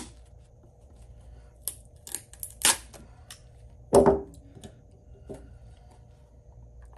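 Sharp clicks and snaps as pliers break the old plastic edge guard away from a pickleball paddle's rim. About four seconds in comes a louder knock as metal pliers are put down on the table among the other tools.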